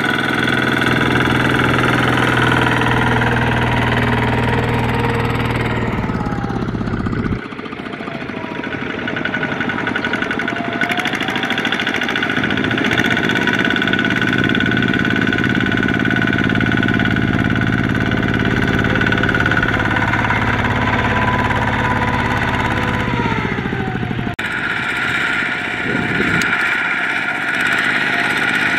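Kubota ZT120 single-cylinder diesel engine of a two-wheel tractor running under load, pulling a trailer of rice sacks, with a steady rapid knocking beat. The engine note drops and shifts abruptly twice, about a quarter of the way in and near the end.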